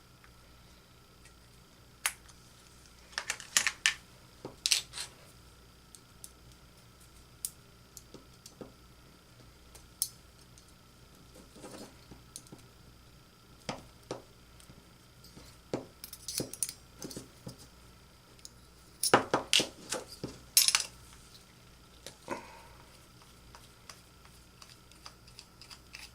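Small metal tools and engine parts clicking and clinking on a workbench while a TRX 2.5 nitro RC engine is being taken apart: scattered single clicks with a few quick clusters, the loudest run of clinks about three quarters of the way through.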